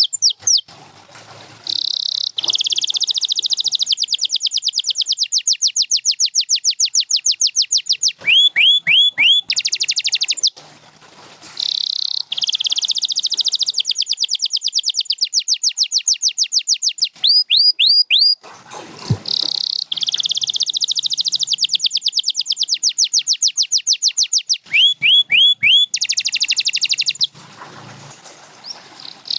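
Domestic canary singing: long, fast trills of rising notes broken by sets of four slower upswept whistles, the same song sequence coming round about every eight or nine seconds. A single low knock sounds about two-thirds of the way through.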